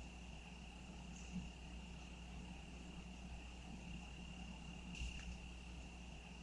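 A cricket trills in one steady, unbroken high-pitched tone over a faint low hum, with a brief sharp click about five seconds in.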